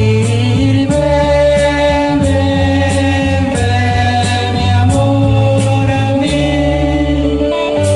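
Recorded band music: a romantic song with long held melody notes over a bass line and a steady beat marked by a cymbal.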